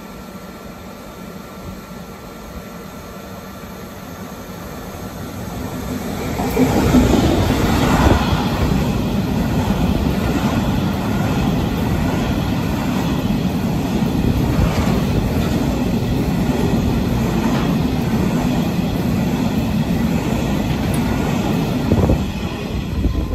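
Diesel-hauled freight train running through a station: the sound builds as it approaches and grows loud about six and a half seconds in, then a long rake of box wagons rolls past with a steady rumble and wheel clatter over the rail joints.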